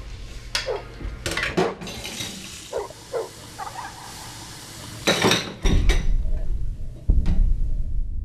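Dishes and cutlery clinking and knocking as they are handled at a kitchen sink, in a handful of separate sharp knocks. A low rumble sets in from about six seconds in.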